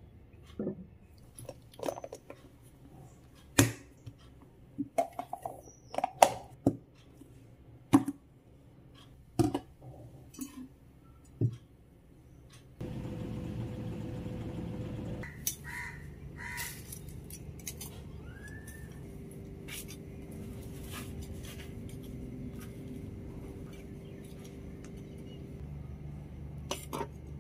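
Wooden spatula knocking and scraping in a nonstick frying pan and a small stainless steel bowl clinking against the pan, a string of sharp clanks. About halfway through, this gives way to a steady background noise outdoors.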